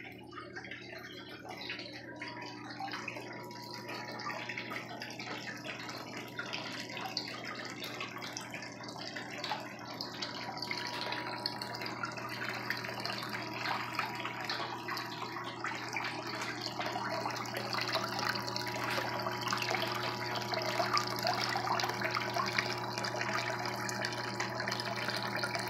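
Water pumped by a sump pump pouring off the end of a plastic rain-gutter sluice box into a water-filled bucket and tub, splashing steadily and growing a little louder over time. A steady low hum from the pump runs underneath.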